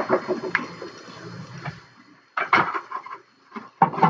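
Metal kitchen utensils clinking as a utensil drawer is rummaged for a spatula, then the metal spatula knocking and scraping on a metal baking sheet. A few sharp clinks with pauses between them.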